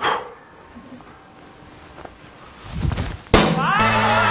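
A short whoosh at the very start, then about three seconds in a sharp smack as the pitched baseball hits the strikeout target board, followed at once by men yelling and a music sting.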